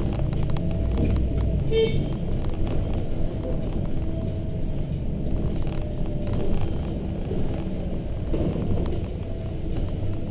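A Volvo B7RLE bus running on the road, heard from inside: its diesel engine and drivetrain rumble steadily. A short beep sounds about two seconds in.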